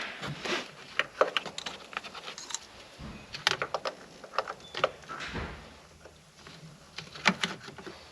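Irregular light clicks and clatter of small engine parts and hand tools being handled during intake manifold work, with a brief scraping rush about five seconds in.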